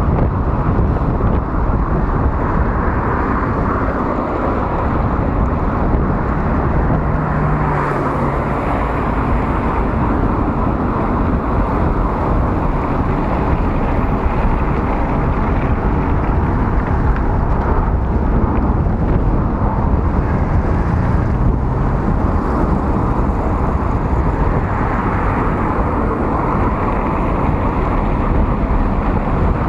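Steady rushing noise of riding a bicycle along a city road: wind on the handlebar camera's microphone mixed with the hum of nearby car traffic.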